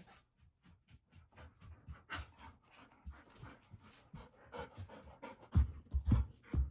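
Golden retriever panting rapidly with its tongue out, in quick short breaths. A few dull thumps come near the end.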